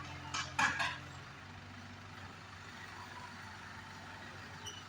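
Heavy diesel engine running steadily, louder at first and dropping to a quieter, lower hum just after a second in. Two short noisy bursts come under a second in.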